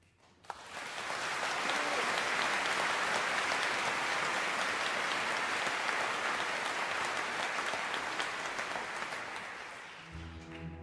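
Theatre audience applauding, starting about half a second in and dying away near the end as the orchestra's strings come back in.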